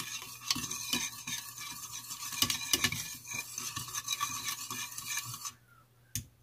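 Metal wire whisk beating a thin sauce in a ceramic bowl, the wires clinking and scraping rapidly against the bowl as cornstarch is whisked in to work out lumps. The whisking stops near the end.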